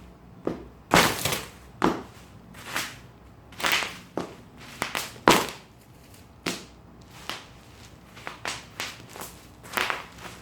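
Bubble wrap being popped and crumpled: irregular sharp pops mixed with crinkling rustles, a dozen or so, with the loudest pop about five seconds in.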